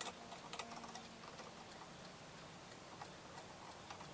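Faint clicking and ticking of a Phillips screwdriver driving a wood screw through a rubber butt plate into a wooden shotgun stock. The clicks come in a quick run over the first second or so, then now and then.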